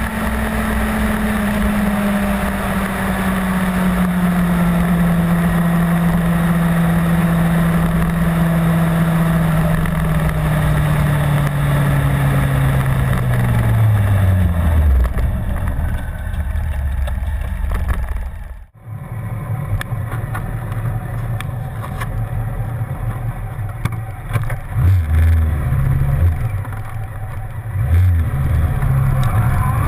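Honda CBR600 sport bike's inline-four engine: its note falls steadily over about fifteen seconds as the bike slows. The sound then cuts out abruptly, and the engine runs at low revs until near the end, when the revs begin to rise as it accelerates.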